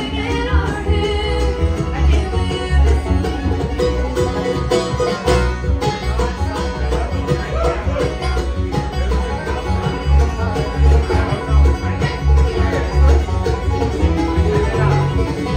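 Live bluegrass band playing: fiddle, mandolin, banjo, acoustic guitars and upright bass together, with the bass notes steady underneath.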